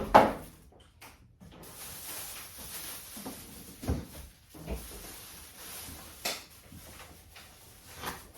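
Packaging being handled while unboxing a microwave oven: a loud knock at the start, then steady rustling with several lighter thumps.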